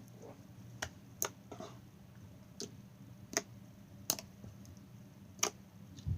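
Glossy slime being squeezed and worked by hand, giving sharp clicking pops as trapped air bursts, about seven spread irregularly.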